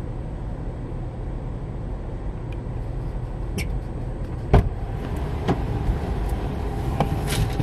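Car idling, heard from inside the cabin: a steady low rumble, with a few light clicks and one sharper knock about four and a half seconds in.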